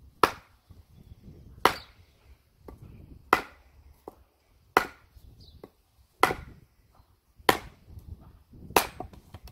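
Wooden mallet striking the back of an axe head seven times, about one blow every second and a half, driving the axe down through a log to split it.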